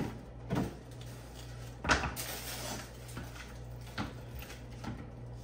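Light knocks and handling noises as a gift item is picked up and tried on, the sharpest knock about two seconds in, over a steady low hum.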